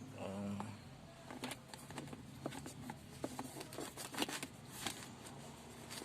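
Hands working a gear shift boot and its plastic trim around the shifter in a car's centre console: irregular small clicks, taps and rustling.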